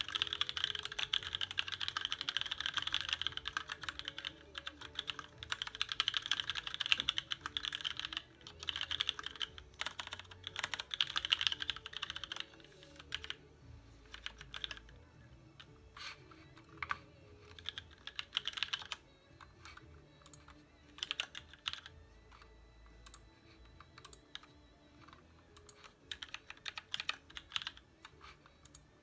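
Typing on a custom mechanical keyboard with an aluminum TX1800 case and plate, lubed Cherry MX Black linear switches and thick ABS Cherry-profile keycaps. Fast continuous typing for about the first twelve seconds, then slower scattered keystrokes and short bursts.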